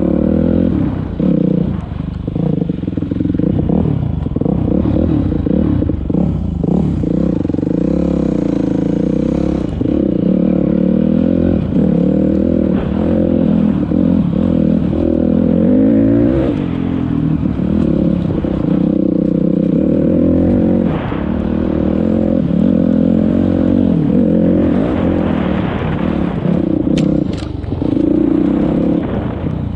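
Dirt bike engine running under way on a rough trail, its pitch rising and falling as the throttle is worked, with a few knocks and rattles from the bike over the ground.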